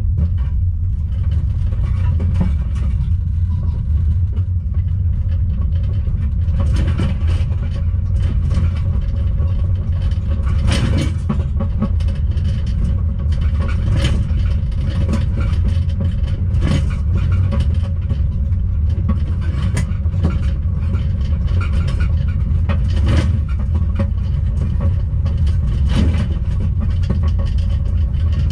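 Caravan on tow, heard from inside its closed microwave oven: a steady low road rumble with occasional knocks and rattles, the sharpest about eleven and fourteen seconds in.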